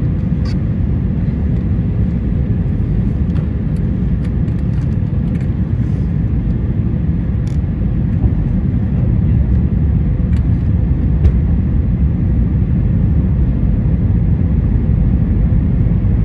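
Steady low roar of a jet airliner's engines and rushing air, heard from inside the passenger cabin as the plane descends to land, growing slightly louder about halfway through.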